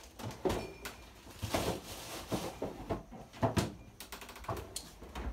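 A run of irregular knocks and clatters from kitchen items being handled and set down out of view, several of them sharp.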